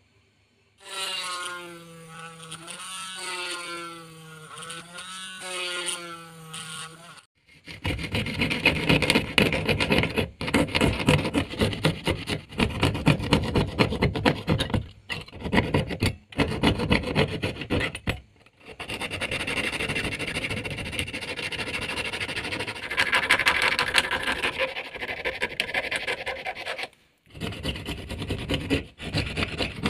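Hand fret saw cutting thin PVC sheet: fast back-and-forth rasping strokes that stop briefly a few times. It is preceded by a wavering pitched sound lasting about six seconds.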